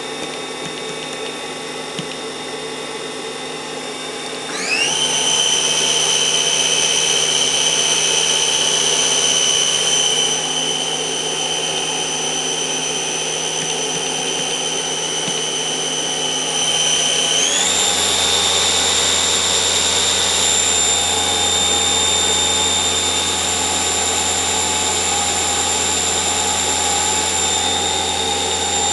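Makino RMC 55 CNC milling machine spindle running with a steady high whine. It spins up quickly to a higher speed about four and a half seconds in, and again about seventeen seconds in, settling at each new speed.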